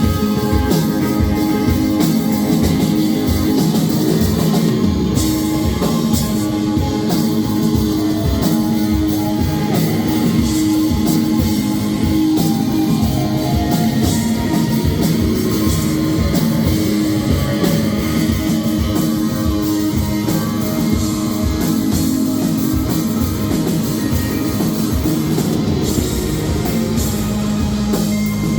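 Rock band playing live, with guitars over a drum kit keeping a steady beat.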